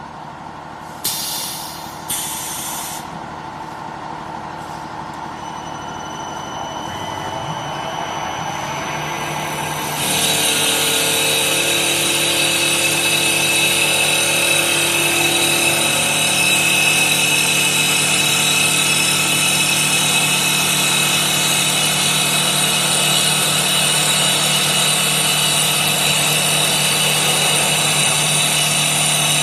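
Automatic CNC wood lathe at work. Two short hissing bursts come about one and two seconds in. Then the machine's hum grows steadily louder, and about ten seconds in it jumps to a louder, steady, harsh cutting sound as the tool turns the spinning wood blank.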